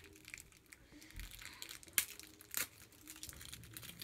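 2013 Topps football trading-card pack wrapper crinkling as it is torn open, with scattered sharp crackles, the loudest about two seconds in.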